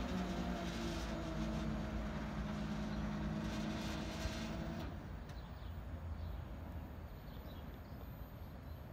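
TGV Lyria double-deck high-speed train moving away along the line: a low rumble with a steady electric hum that slowly fades. The hum cuts off about five seconds in, leaving fainter track noise.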